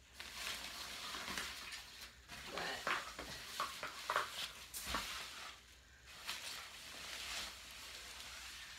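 Rustling and handling of fabric and plastic parts, uneven and scratchy, with a single thump about five seconds in.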